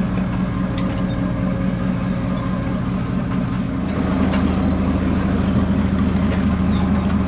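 Boat engine droning steadily; a little before four seconds in it gets deeper and somewhat louder.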